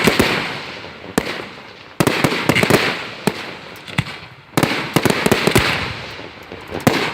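Aerial fireworks bursting overhead: loud bangs with crackling, sizzling tails that fade over a second or two, coming roughly every two to three seconds.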